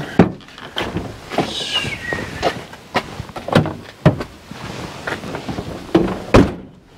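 Doors being shut and locked: a series of clunks and knocks from latches and locks, with a short falling squeak about two seconds in. The loudest knocks come just after the start and near the end.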